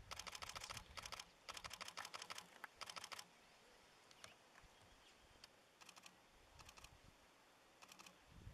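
Camera shutters firing in continuous bursts of rapid clicks: several bursts in the first three seconds, then a few short bursts later on.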